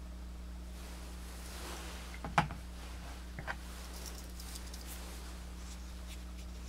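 Light handling noise of a Swiss Army knife: a soft rustle, one sharp click about two and a half seconds in, then two smaller clicks and faint ticks, over a steady low electrical hum.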